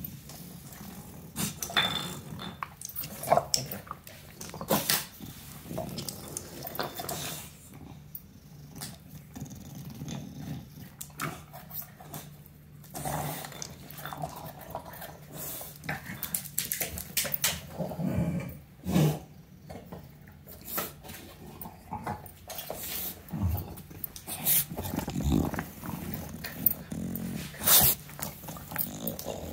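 Bulldog playing with rubber chew toys, growling and grunting low and steadily as it mouths them, with scattered knocks and clatters of the toys against the parquet floor.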